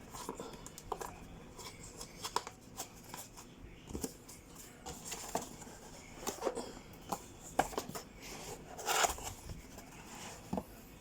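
Cardboard box and packaging being opened and handled: irregular small clicks, scrapes and rustles, with a longer rustle about nine seconds in.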